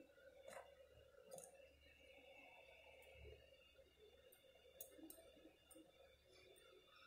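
Near silence with a few faint, light clicks of metal tweezers and a perforated metal plate being set down on a smartphone circuit board.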